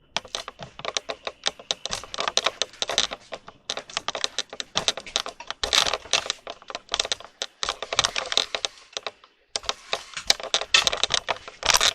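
Rapid, dense clicking and clattering of hard objects being handled, in runs broken by short pauses about three and a half and nine and a half seconds in.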